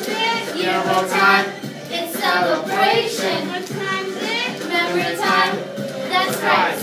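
Young voices singing a song together over backing music.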